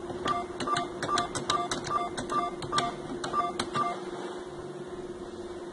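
Cash machine keypad being pressed nine times, about three presses a second, each a click with a short electronic beep, as a mobile phone number is keyed in. A steady hum runs underneath.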